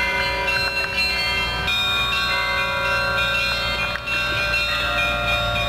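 Russian church bells ringing in a peal. Several bells are struck one after another, and their long ringing tones overlap above a steady deep hum.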